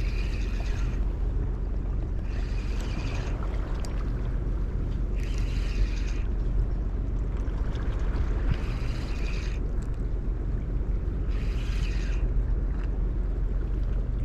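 Spinning reel cranked in short bursts of about a second, roughly every three seconds, as an egi squid jig is worked back, over steady wind rumble on the microphone.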